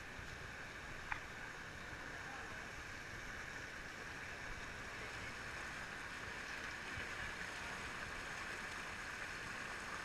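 A shallow mountain river flowing over boulders: a steady rush of water. A single sharp click about a second in.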